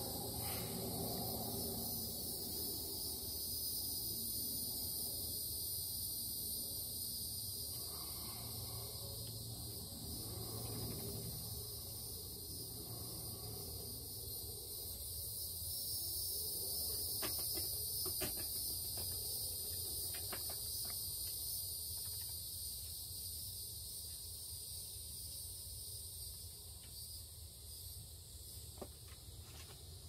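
Steady high-pitched chorus of insects singing, over the low rumble of an airplane passing overhead that slowly fades away.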